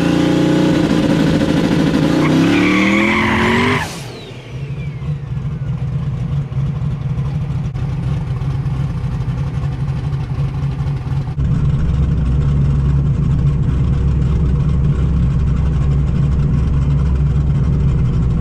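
Fox-body Mustang race car's engine accelerating hard, its pitch climbing for the first few seconds before cutting off suddenly about four seconds in. A steady lower engine drone follows, stepping up abruptly in level near the middle.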